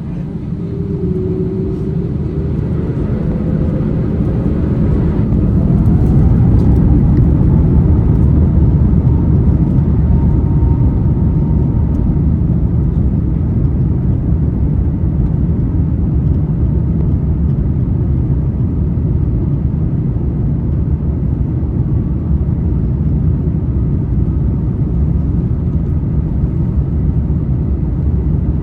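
Airbus A350-900's Rolls-Royce Trent XWB jet engines spooling up to takeoff thrust, heard inside the cabin: a rising whine over the first several seconds, then a steady loud rumble as the jetliner rolls down the runway.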